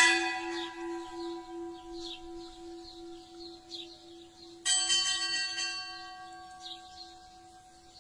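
Church bell tolling for a death: two slow strikes about four and a half seconds apart, each ringing on and fading slowly. A bird chirps repeatedly in the background.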